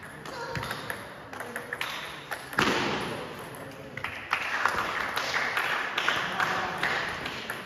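Table tennis ball clicking off the paddles and the table during a rally: irregular sharp ticks, each with a short echo off the hall walls.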